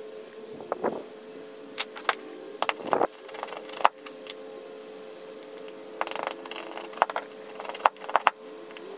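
Sharp knocks and cracks of a hatchet blade, held short by its head, chopping and splitting thin strips of wood, with a short scraping patch about six seconds in. A steady low hum runs underneath.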